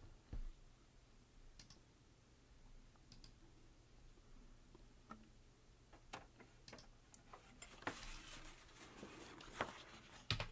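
Quiet handling sounds: a few faint scattered clicks and taps, then a short soft rustle of paper near the end as a printed sheet is lifted out of the printer's output tray, over a low steady hum.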